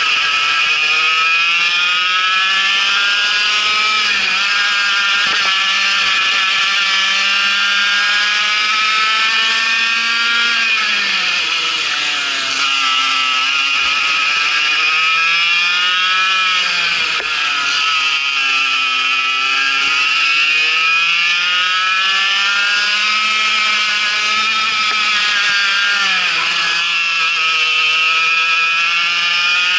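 Vortex MiniRok 60 cc two-stroke kart engine running hard on track, its pitch climbing steadily on the straights and dropping sharply three times as the throttle is lifted for corners, with a steady hiss over it.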